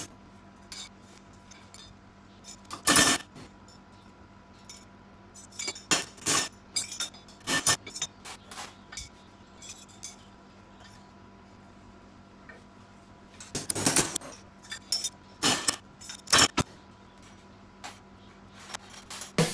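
Steel pieces knocking and clinking against each other and against tools, a dozen or so sharp metallic knocks scattered irregularly with pauses between, the loudest about three seconds in and again around fourteen seconds.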